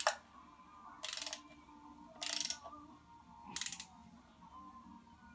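Ratchet wrench clicking in four short strokes about a second apart, bolts being run down before they are torqued to 20 foot-pounds.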